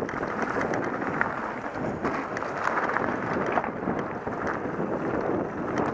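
Mountain bike tyres rolling fast over loose gravel and rock, a steady rough rumble with scattered small clicks and rattles, mixed with wind buffeting the helmet camera's microphone.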